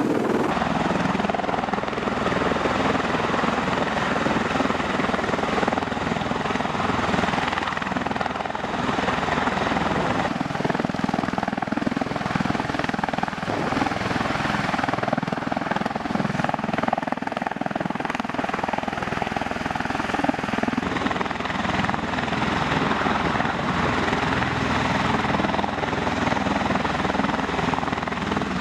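V-22 Osprey tiltrotor hovering low, its rotors and turbine engines making a loud, steady drone.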